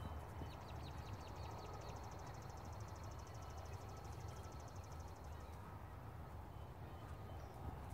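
A songbird sings: a few short, high chirps come about half a second in, then a fast, even, high-pitched trill lasts until about five and a half seconds in. Under it is a steady low background rumble.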